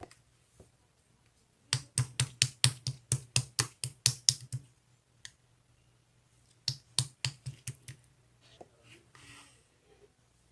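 Two runs of quick, sharp clicks or taps, about five a second: a longer run starting nearly two seconds in, then a shorter one after a pause of about two seconds.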